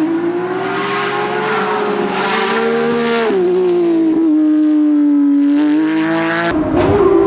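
Rally car engine running hard at high revs with a steady, slightly rising note and a short drop in pitch about three seconds in, then a burst of sharp cracks and pops near the end.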